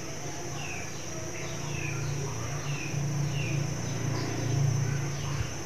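Ambient background of short, falling bird-like chirps repeating about every half second to second, over a steady high insect drone. A low hum swells about four seconds in and is the loudest part.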